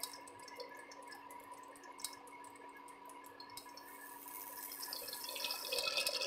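Jackfruit curry bubbling and popping as it simmers in an open pressure cooker, growing louder in the last couple of seconds.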